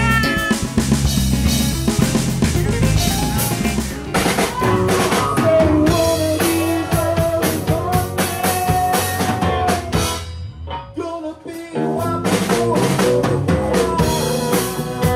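Band music with a prominent drum kit, snare and bass drum strokes over held notes. The music drops away for about a second and a half partway through, then comes back in.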